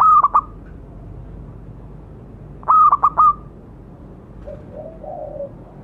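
Zebra dove cooing: two loud phrases of quick, clipped notes about three seconds apart, then softer, lower coos near the end. This is its calling song, used to lure a rival dove into answering.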